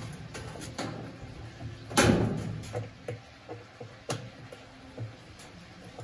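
Knocks and clatter from parts being handled inside a top-loading washing machine's outer tub, with one loud clunk about two seconds in and a few smaller knocks after it.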